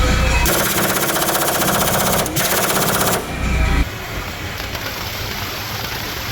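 Impact wrench hammering in two bursts, about a second and a half and then under a second, with a fast rattle.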